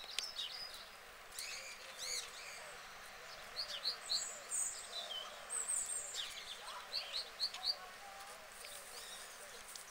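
Small songbirds chirping and singing in short, high notes, some in quick runs of three or four, over faint steady outdoor background noise.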